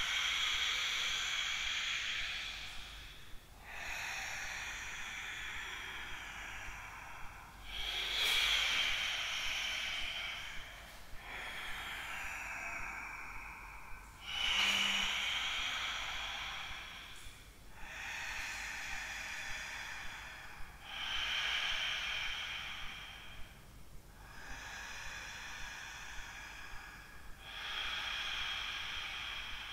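Ujjayi yoga breathing: slow, deep inhales and exhales drawn through a narrowed throat. Each breath is a long hiss of about three seconds with a short pause between, about nine in a row, paced to the flowing sun-salutation movements.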